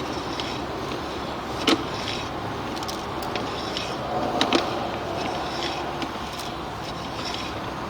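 Steady background noise, with a sharp click a little under two seconds in and a few more clicks around the middle.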